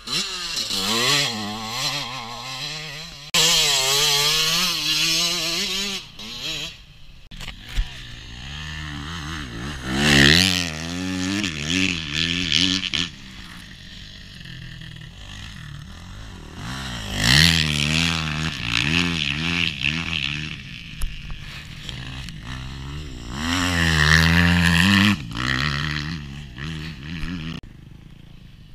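Motocross bike engines revving hard and falling back through gear changes as the bikes ride past on the dirt track, swelling loud several times as they come close and fading as they move off.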